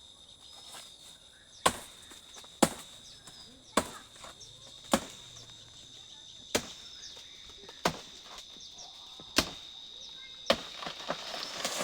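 Blade chopping into a banana plant's stem: eight sharp chops, about one every second or so. A steady high insect drone runs underneath.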